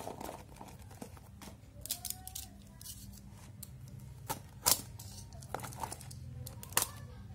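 Plastic wrap crinkling and a craft knife slitting the packing tape along a cardboard box's seam: scattered scrapes and sharp clicks, the loudest about four and a half seconds in.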